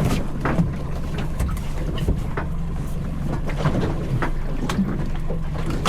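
Small boat on choppy water: a steady low rumble with frequent irregular knocks and slaps.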